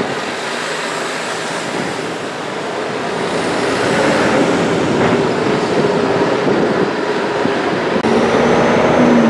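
Diesel engines of Volvo FH heavy trucks moving slowly past, a bare tractor unit and then one hauling a shipping container, with tyre and traffic noise. The sound grows louder from about three seconds in, and a steady engine drone comes in near the end.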